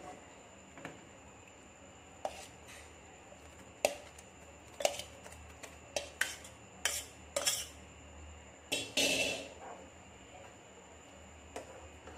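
Metal spoon knocking and scraping against a metal pan as lemon pieces are added to thick sugar syrup and stirred in: about ten sharp clinks, with a longer one about nine seconds in.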